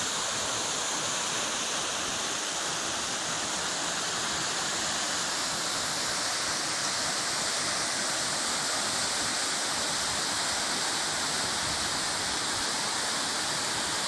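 Waterfall falling through a narrow rock gorge into a pool: a steady, even rush of water.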